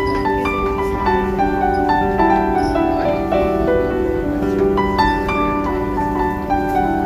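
Piano music: a melody of short, stepping notes over held lower notes.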